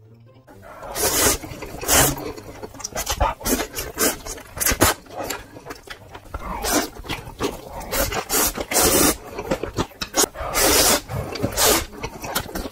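Close-miked slurping of ramen noodles: quick, noisy sucking pulls in irregular runs, starting about half a second in, with a few longer slurps among the short ones.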